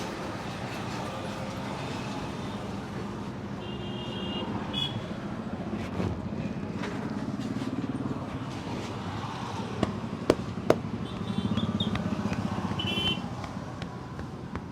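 Passing street traffic, with motorcycles and cars running steadily, and short high horn beeps about four seconds in and again near the end. Two sharp snaps come half a second apart, a little past the middle.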